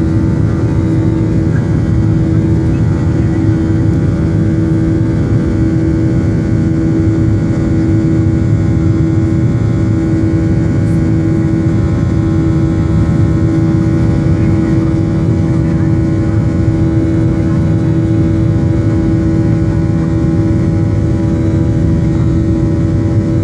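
Boeing 737-800 cabin noise in the climb after takeoff: the CFM56-7B turbofan engines and rushing airflow heard through the fuselage as a loud, steady roar. Several steady hum tones sit over it, the strongest a low drone.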